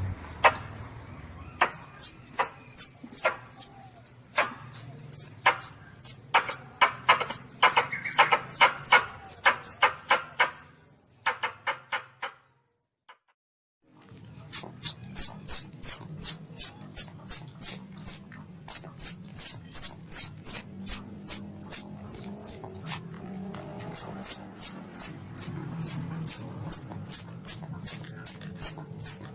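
Young Asian palm civet (anak luwak) calling: a rapid series of short, high-pitched squeaky chirps, about two to three a second, which stops for about two seconds midway and then resumes.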